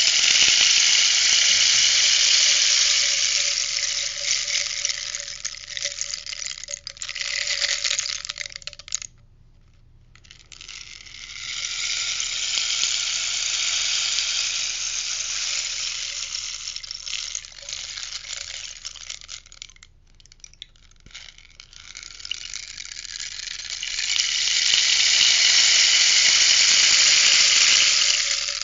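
Rainstick being tipped over and over, its pebbles or beads trickling down inside in a long rushing hiss. It makes three cascades, each several seconds long, with short pauses after about nine seconds and again about twenty seconds in, when the stick is turned.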